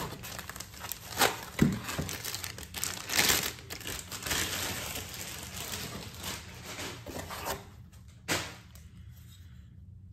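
Clear plastic bag crinkling and rustling as a rifle chassis is pulled out of it, dying away near the end, with one short knock about eight seconds in.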